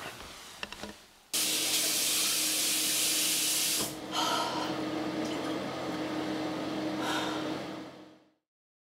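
Water running hard from a bathroom tap into a sink: a loud rushing hiss that starts suddenly after a few faint clicks, dips briefly about four seconds in, then runs on with a low steady hum under it before cutting off abruptly near the end.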